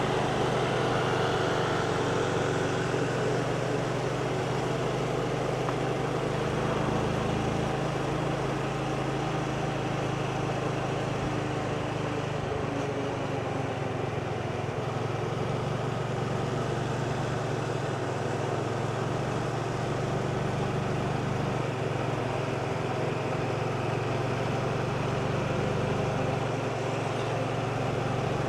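Motorbike engine running at a steady cruising speed while riding, with road and wind noise over it. The engine pitch shifts slightly a couple of times.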